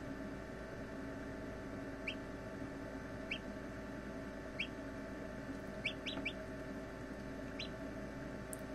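Hatching chicks peeping from inside their eggs: seven short, high, rising peeps, three of them in quick succession about six seconds in, over a steady incubator hum.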